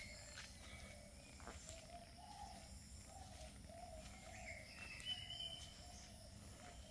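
Faint birdsong with insects: a bird repeats short wavering notes about twice a second, a few higher chirps come in about five seconds in, and thin, steady high insect trills sit behind them.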